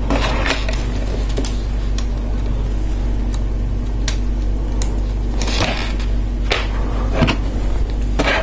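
Small plastic clicks and rustles of LEGO Technic pieces being handled and fitted together, a few sharp clicks scattered through, over a steady low hum.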